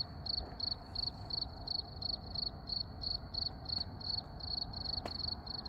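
A cricket chirping in a steady rhythm, about three short high chirps a second, over a faint low rumble. A single sharp click comes near the end.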